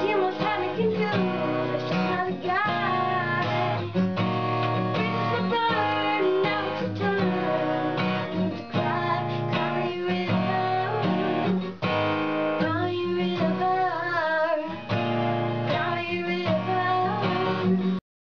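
A boy singing while strumming an acoustic guitar; the music cuts off abruptly near the end.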